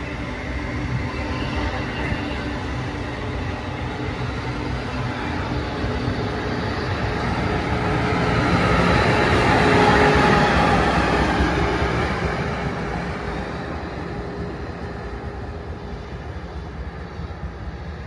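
Amtrak Acela Express trainset passing at speed: steady wheel and rail noise builds to its loudest as the rear power car goes by about ten seconds in, then fades as the train recedes.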